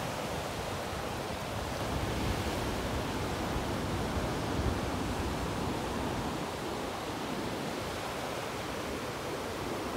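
Surf washing onto a sandy Gulf beach: a steady rushing hiss of small waves that swells slightly a few seconds in.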